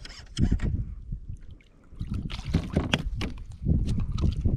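A small hooked redfish splashing at the surface beside a plastic kayak, then a run of short knocks and rustles as it is swung aboard on the line, over a low wind rumble on the microphone.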